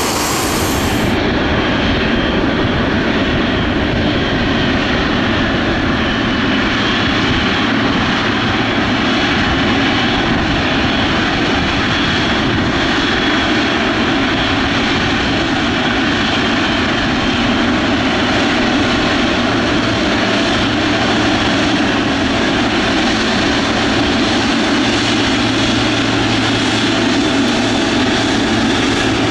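Boeing 777-200F freighter's twin GE90 turbofans running at take-off thrust on the take-off roll: a loud, steady jet noise with a thin high whine over it.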